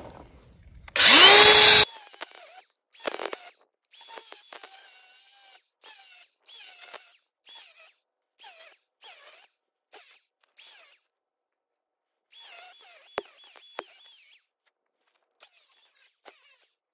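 Craftsman angle grinder with a cutoff wheel cutting into the steel wire-rope stub knotted in a winch drum. It spins up with a rising whine into one loud cut about a second in, then runs in many short trigger bursts, each winding up and down.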